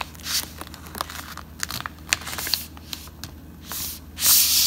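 A sheet of plain paper being folded and creased by hand into a paper airplane wing: crisp rustles and small crackles, with a longer, louder rustle a little after four seconds in as a fold is pressed flat.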